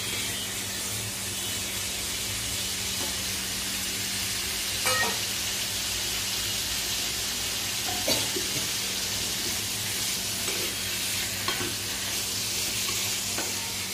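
Hilsa steaks, eggplant and spice paste sizzling in a frying pan, with a spatula stirring and turning them and knocking against the pan several times. A steady low hum runs underneath.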